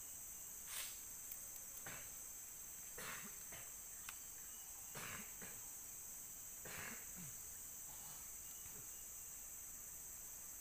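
A steady, high-pitched insect chorus drones throughout. About half a dozen brief rustles cut in over it, the first and loudest about a second in.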